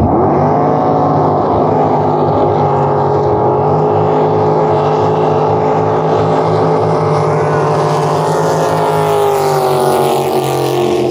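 Jet drag boats racing past at full throttle with rooster tails of spray. The engine note is loud and steady with several pitched layers. It climbs at the start and drops in pitch near the end as the boats go by.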